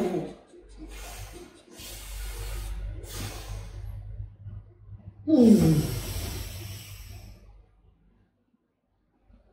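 Close breathy huffing and sniffing, with one wordless voiced sound that falls in pitch about five seconds in.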